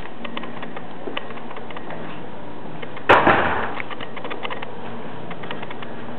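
A single sharp thump about three seconds in, over a steady hiss with faint scattered clicking.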